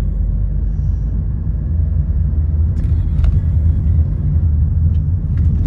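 Steady low rumble of a car driving, heard from inside the cabin: engine and road noise, with a few faint clicks about three seconds in and near the end.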